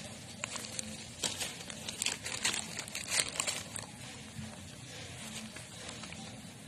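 Brown paper bag crinkling and rustling as it is handled, with a flurry of sharp crackles between about one and four seconds in.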